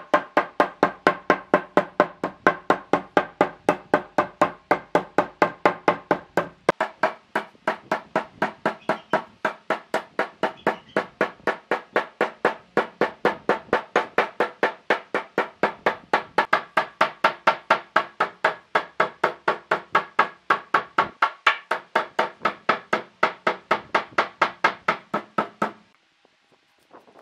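Rapid, evenly spaced hammer blows on wood, about three and a half a second, each with a short ringing note; they stop about a second before the end.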